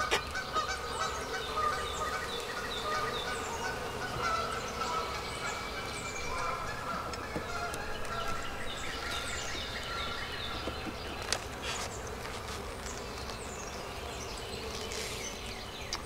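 Honeybees buzzing around an opened hive, many overlapping wavering drones, which the beekeeper reads as the bees getting agitated. Birds chirp in the background, and there is one sharp knock a little past the middle.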